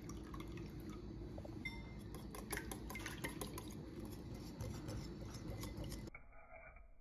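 Wire whisk beating eggs and milk in a glass bowl: a faint, quick run of light clicks as the wires strike the glass, fading out near the end.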